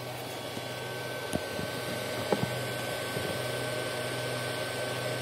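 Steady hum and whir of a small motor on a filament extruder and spool-winder setup, with a faint steady high whine and a few light clicks about one and a half and two and a half seconds in.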